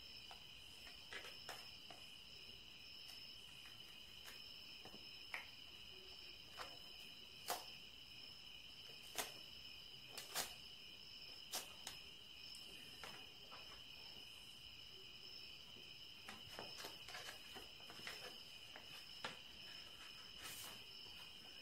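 Paper handled as an envelope is opened and its contents pulled out: faint, scattered crinkles and taps, over a steady high-pitched tone.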